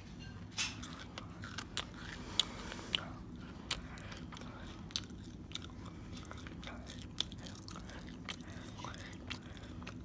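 A person chewing crunchy pretzels right at the microphone: irregular crisp crunches, loudest a little over two seconds in.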